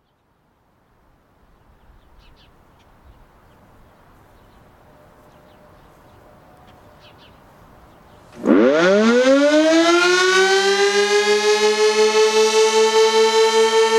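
Sentry 16V-1T-B outdoor warning siren starting its attack signal test: after several seconds of faint background, it winds up with a fast rising pitch that levels off into a loud steady tone, pulsing regularly in loudness.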